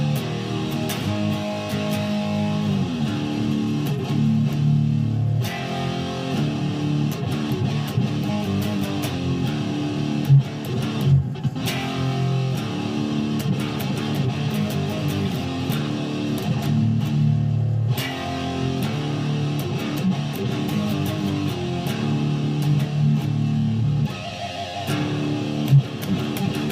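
Guitar music playing steadily, with held chords and notes.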